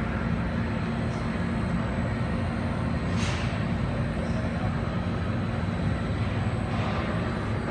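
Steady background hum of running machinery: an even rushing noise with a low drone underneath that holds level throughout, and a faint brief handling sound about three seconds in.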